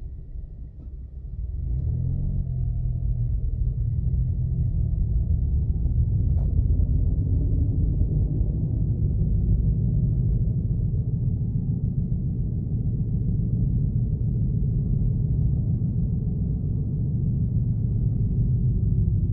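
Car engine and tyre rumble heard inside the cabin: quiet at first, then the car pulls away about two seconds in and drives on with a steady low rumble.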